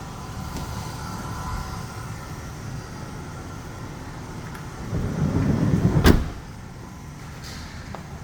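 A van's sliding side door rolling along its track for about a second and shutting with one sharp knock about six seconds in, over a steady low hum.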